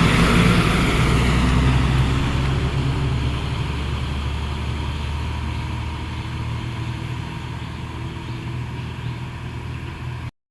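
Heavy coal truck's diesel engine running with a steady low drone, slowly fading over the span.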